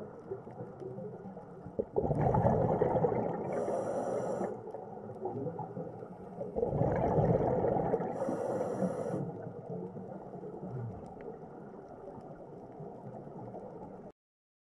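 Scuba diver's breathing through a regulator, heard underwater: two breaths about four and a half seconds apart, each a surge of bubbling rumble with a short hiss near its end.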